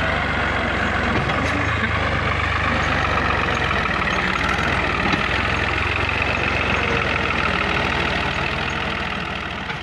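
Ghazi farm tractor's diesel engine running steadily under load as it pulls a trolley loaded with soil. It gets quieter near the end.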